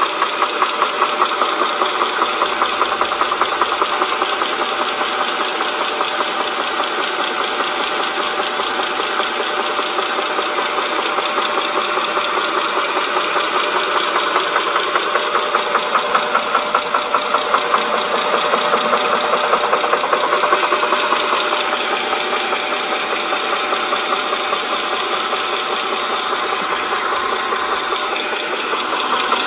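2007 Dodge Charger 2.7-litre V6 engine running with a steady, rapid knocking rattle. The owner puts the noise down to a broken timing chain guide or tensioner.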